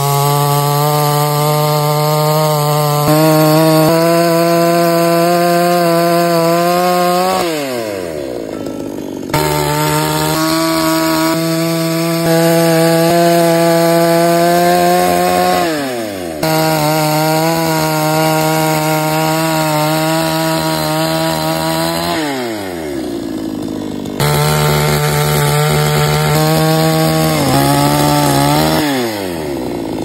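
Two-stroke gasoline chainsaw cutting lengthwise along a log at full throttle in four long runs. At the end of each run the engine pitch falls as the throttle is released, then jumps straight back up for the next cut.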